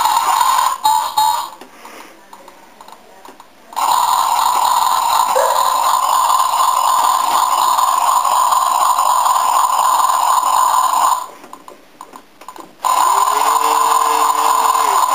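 Dickie MAN toy truck's electronic sound module playing through its small built-in speaker as its cab buttons are pressed: a loud, steady, buzzy drone that cuts out twice for a second or two. Near the end a tone that rises, holds and falls is added, twice.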